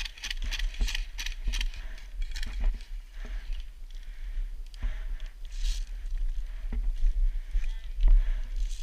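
Footsteps crunching through snow in an irregular series of short crunches, over a steady low rumble on the microphone.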